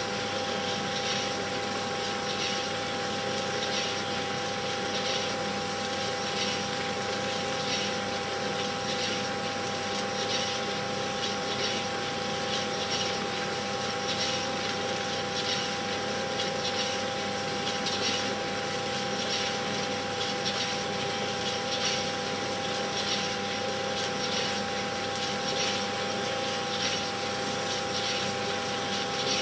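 Steady mechanical whirr with hiss, holding two steady tones. It runs unchanged throughout.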